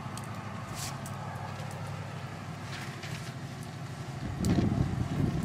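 Steady low hum of a vehicle engine running, with a few faint clicks. About four seconds in, a louder low rumble starts.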